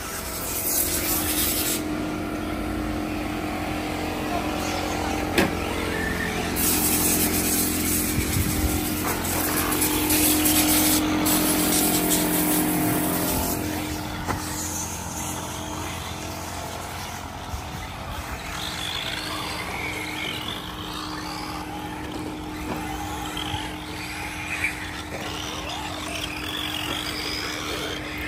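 Radio-controlled cars running on a track, with a high-pitched whine and rush that swell about half a second in and again from about 7 to 13 seconds in, as a car passes close. A steady hum runs underneath.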